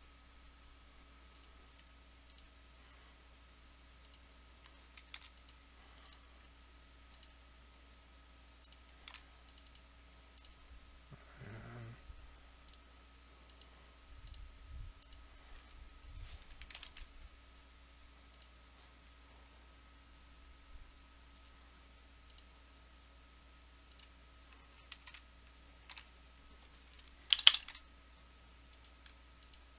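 Computer mouse clicks and keyboard keystrokes, sparse and irregular, over a faint steady electrical hum, with one much louder sharp click near the end.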